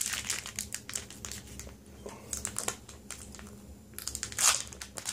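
Foil booster-pack wrapper crinkling and crackling as it is handled and opened, in irregular bursts, with a quieter lull just past the middle and a louder burst of crinkling near the end.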